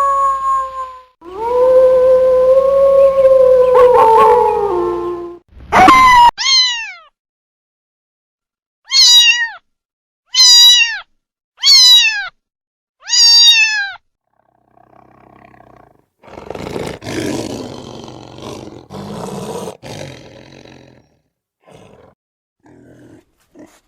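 A string of different animal calls. First two long drawn-out pitched calls, then four short high calls about a second and a half apart, each falling in pitch, then rough low growling calls.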